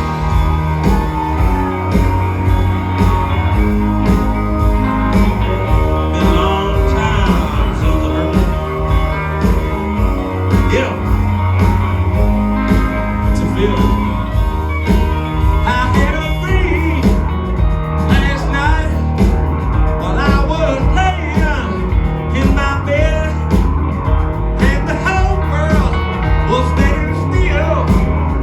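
Live band playing a bluesy rock-and-roll number: electric guitar, bass and drums with a steady beat, and a singing voice.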